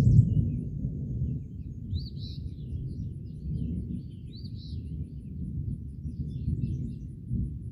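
Thunder rumbling low and long, loudest at the start and slowly fading. A bird chirps twice above it.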